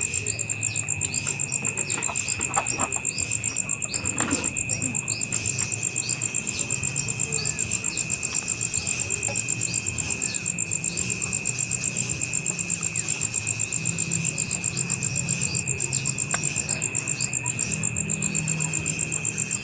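Insects trilling steadily: a high-pitched, rapidly pulsing drone that runs on unchanged, with a second, lower steady tone beneath it. Faint short chirps come through over the first few seconds.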